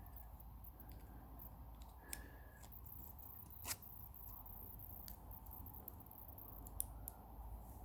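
Sparse, faint clicks of small metal padlock parts being handled, with a sharper click near the middle, over a low steady hum.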